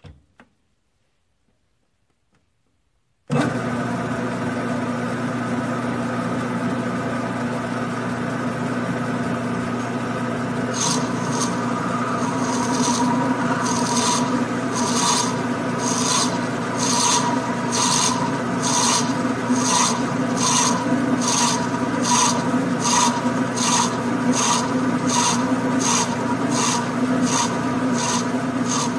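Grizzly G9972Z metal lathe starting up about three seconds in and running steadily with a hum of several held tones. About ten seconds later a rhythmic high hiss, roughly two pulses a second, joins in as the tool works a spinning brass part.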